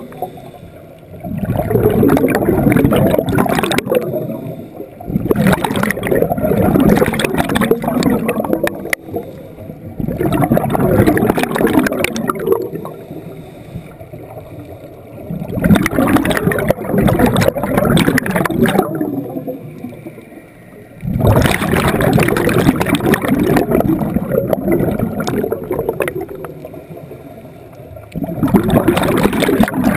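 Scuba diver's exhaled bubbles from the regulator gurgling and rumbling past an underwater camera, in bursts of about three seconds roughly every five seconds, with quieter gaps between: a diver's steady breathing cycle.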